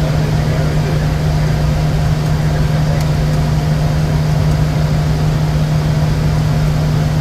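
Steady noise inside the cockpit of a Bombardier Challenger 350 jet in flight: rushing air and engine noise with a constant low hum.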